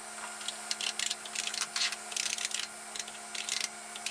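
Typing on a computer keyboard: irregular clacking keystrokes, some in quick runs, over a steady machine hum.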